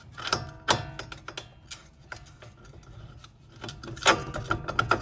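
Hammer blows on a steel punch, driving a serrated strut-to-steering-knuckle bolt out of the front knuckle. Sharp metal strikes with brief ringing come in a quick cluster near the start and again about four seconds in. The serrations pressed into the knuckle are why the bolt has to be pounded out.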